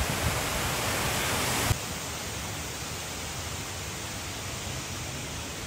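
Steady rushing of a waterfall, an even wash of water noise. A little under two seconds in it drops abruptly to a somewhat quieter level.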